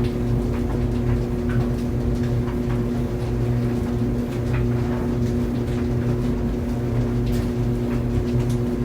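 Laundry dryer running: a steady hum from the motor and drum with scattered light ticks.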